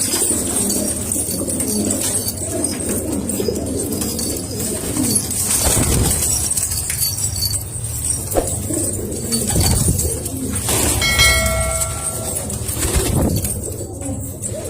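Domestic pigeons cooing continuously, several voices overlapping, with a short pitched tone about eleven seconds in.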